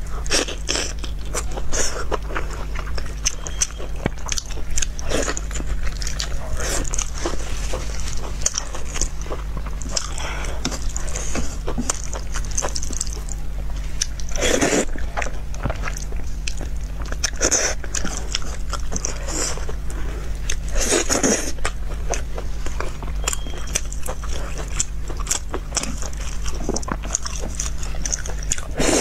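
Close-miked eating: a person biting into soft braised pork belly and slurping and chewing noodles, with many wet mouth clicks and smacks and a few longer, louder slurps around the middle, over a steady low hum.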